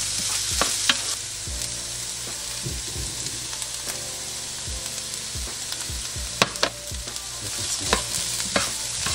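Diced carrots, celery and onion sizzling steadily as they sauté in a skillet. A spoon stirs them, with now-and-then clicks and scrapes against the pan, more of them near the end.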